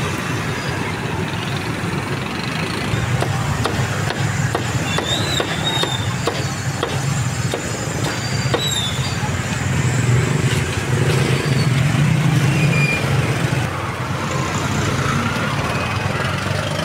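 Steady drone of passing motorbike and car traffic, with a run of sharp knocks from a cleaver chopping roast meat on a wooden chopping block in the first half.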